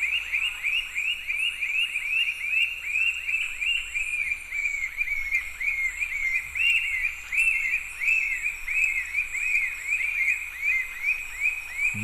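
Black-breasted puffbird singing: a long, even series of short whistled notes, each rising and then dropping in pitch, about three or four a second.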